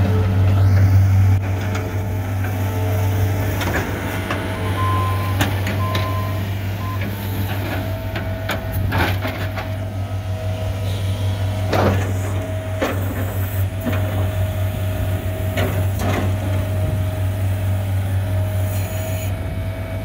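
John Deere 320 skid steer's diesel engine running steadily under load as the machine drives and works its loader arms and bucket, with a whine that comes and goes and several sharp clanks.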